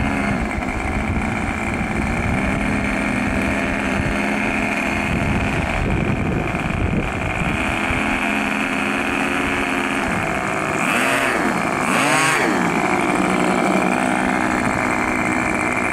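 The twin engines of a Hangar 9 B-25 Mitchell radio-controlled model running steadily as it taxis, with the pitch dipping and rising twice about two-thirds of the way through. The owner is still having trouble synchronising the two engines.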